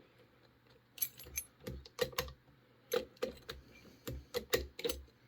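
A Master Lock 930 round-body padlock being worked by hand, giving a run of irregular small metal clicks and clacks that starts about a second in. It is being tried at different angles because its locking ball bearings stick when it is tilted.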